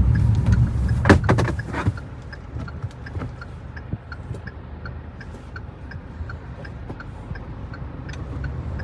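Cabin sound of a Kia Sonet 1.5-litre diesel on the move: low engine and road rumble, louder for the first two seconds, with a few sharp clicks about a second in. After that the car runs more quietly under a light, regular ticking of the turn indicator.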